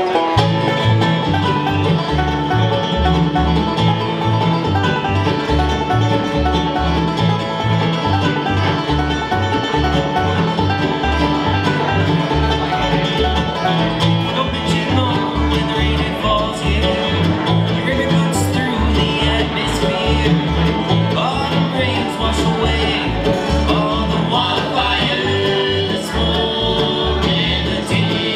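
Bluegrass band playing an instrumental passage live on acoustic instruments: upright bass plucking a steady beat under banjo picking, mandolin and acoustic guitar.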